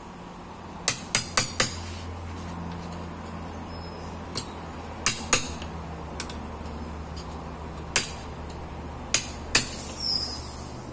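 A steel screwdriver tapping and clinking against a metal motorcycle clutch part: about ten sharp metallic clicks in small irregular groups, with a brief ringing clink near the end, over a steady low hum.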